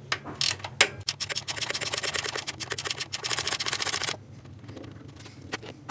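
A 19 mm ratcheting wrench working loose an engine coolant temperature sensor: a few separate clicks, then a fast, even run of ratchet clicks, about ten a second, that stops abruptly about four seconds in.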